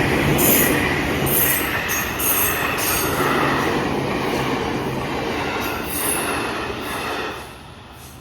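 Two coupled JR Kyushu 783 series electric multiple units passing close by, their wheels running loudly over the rails, with repeated high-pitched screeching patches. The noise falls away sharply near the end as the last car clears.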